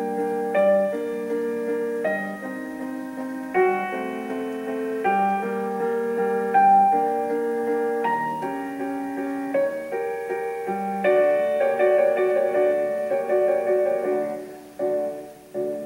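Solo piano music: a melody over held chords, with no drums.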